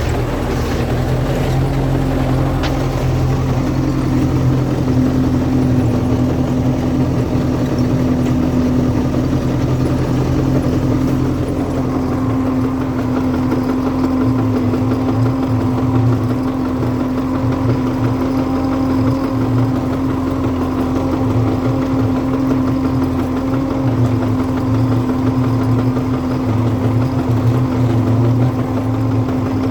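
An MTZ-82 tractor's four-cylinder diesel engine is running steadily at idle. A knock has appeared near the intermediate support of the front-axle drive shaft, and its cause is unknown to the owner.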